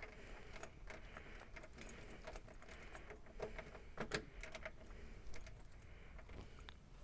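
Keys jingling and light metal clicks from a loose ignition key and lock being worked, with a few sharper clicks about four seconds in.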